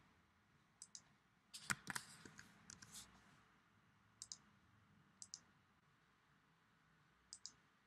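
Quiet computer mouse button clicks, mostly in quick press-and-release pairs, spaced a second or more apart, with one fuller knock about two seconds in.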